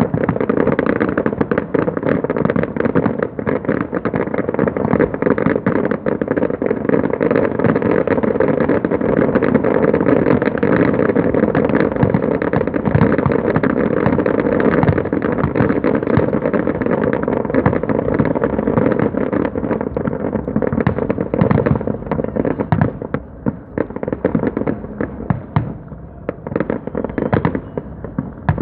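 Fireworks show in a dense barrage: rapid, overlapping bangs and crackles, thinning to more separate bangs in the last few seconds.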